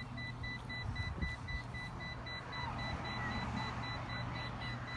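A motor running steadily at a low hum, with a continuous high electronic beep tone sounding over it.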